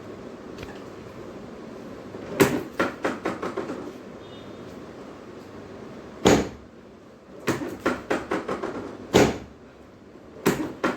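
Sharp thumps and wooden clacking from a chiropractic treatment table during adjustments. There are four hard knocks, and most are followed by a short rattle of quick clacks that dies away within about a second.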